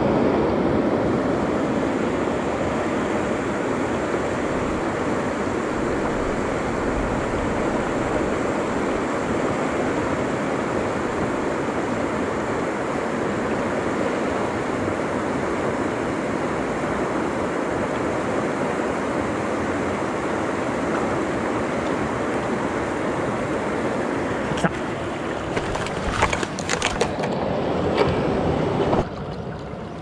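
Mountain stream water rushing steadily over rocks. Near the end the rush drops a little and a few sharp clicks and knocks come through.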